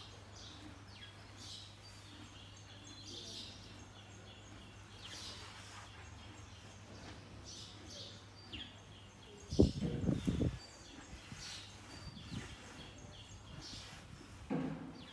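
Small birds chirping repeatedly in short high calls. About ten seconds in comes a brief low rumbling noise lasting about a second, the loudest thing heard.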